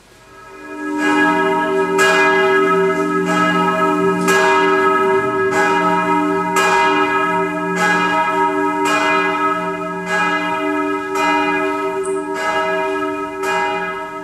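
Bronze church bell cast by the Albert Hiller foundry (widow and son) of Brno, ringing steadily. About a dozen strokes come a little over a second apart, starting about a second in, each with a long ringing tail over a deep hum.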